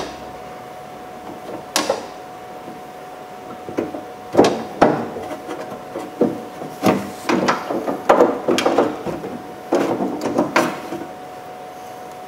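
Irregular knocks and clunks of a car's exterior door handle and lock cylinder being worked into place against the door's sheet metal, with a faint steady tone underneath.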